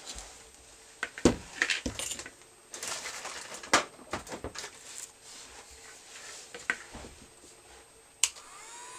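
Handling noises: clicks, knocks and a power cord shifting on a table top. About eight seconds in, a switch clicks and the GJ8018 portable hot air gun's fan starts, its whine rising quickly and then holding steady as a pretty quiet hum.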